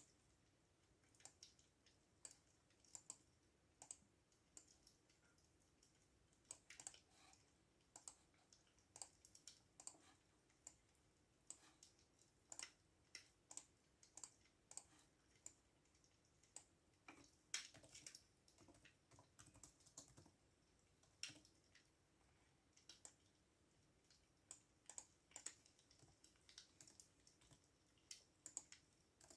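Quiet computer-keyboard typing: irregular runs of key clicks, with short pauses about five and fifteen seconds in.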